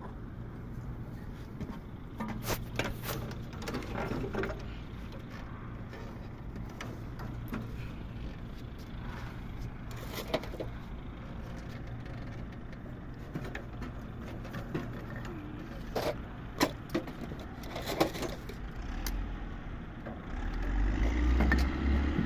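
Scattered metal clanks and knocks as an air-conditioner's rotary compressor is handled and worked free of its mounting base, over a steady low hum. Near the end a louder low scraping rumble as the heavy compressor is shifted across the tiled floor.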